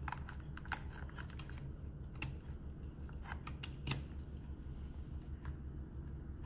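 Scattered light clicks and taps of a smartwatch being handled and set down on a wireless charging pad, over a steady low hum.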